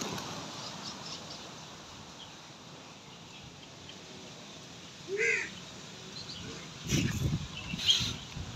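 A short animal call about five seconds in over a steady outdoor background, then rustling and bumps from the handheld camera being moved near the end.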